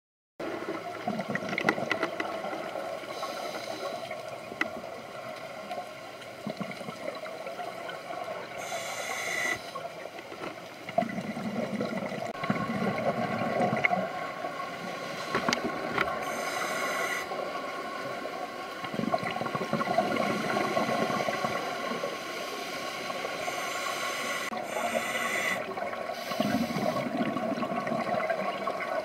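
Scuba diver breathing through a regulator underwater: a hiss on each breath in and a gurgling rush of exhaled bubbles, repeating every seven or eight seconds, over a steady background hum.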